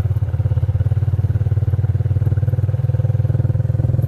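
Motorcycle engine running at a steady speed, with a fast, even pulse.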